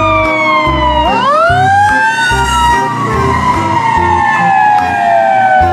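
Fire-engine siren wailing: a falling tone swoops back up about a second in, then slowly falls again, over a pulsing low rumble.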